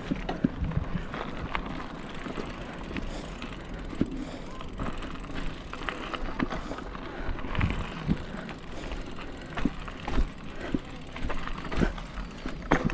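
Mountain bike riding over a rough dirt and gravel trail: tyres crunching steadily, with frequent irregular knocks and rattles as the bike goes over bumps.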